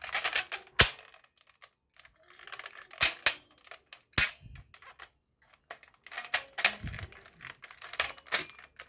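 Toy airsoft gun being worked: a string of sharp snaps and cracks from its action and shots, with quieter mechanical clicks and rattles in between.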